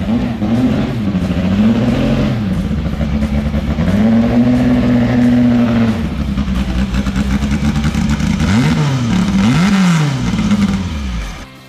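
Historic formula racing car engine revving: the pitch rises and falls, is held high for about two seconds midway, then dips. Two quick throttle blips come near the end before the sound drops away.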